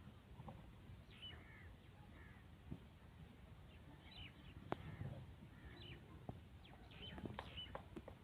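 Faint bird chirps and short calls scattered over a quiet outdoor background, with a few sharp clicks, the clearest about halfway through.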